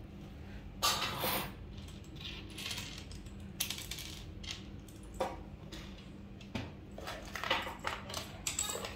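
Scattered light clicks and rustles of handling, a small box and the phone being moved about, with a few louder ones about a second in and near the end, over a faint steady hum.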